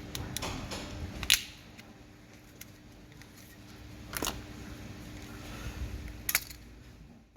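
A few sharp plastic clicks and taps as the pried-open casing of a Chromecast remote is handled, the loudest about a second in and two more later, over a faint steady hum.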